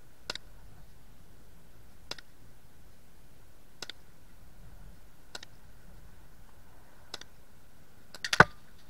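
Sharp single clicks about every one and a half to two seconds, then a louder quick cluster of clicks near the end: air-gun pellets striking around a can target, the last cluster as the can is hit.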